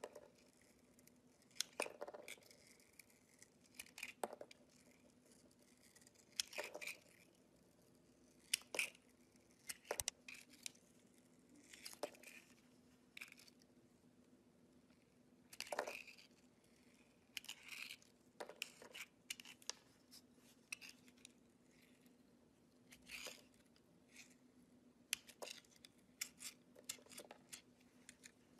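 A snap-off utility knife blade cutting into a glitter-coated bar of soap: short, crisp scrapes and crunches at irregular intervals, every second or two, with quiet between.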